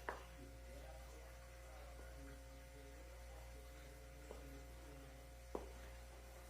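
Near silence with a steady low electrical hum, broken by three short, faint clicks: one at the start, one about four seconds in and one near the end.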